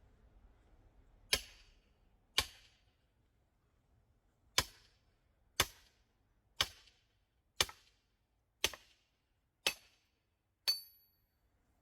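Hammer blows driving a steel chisel-type splitting wedge into a log: nine sharp metal-on-metal strikes, most about a second apart, the last one ringing briefly.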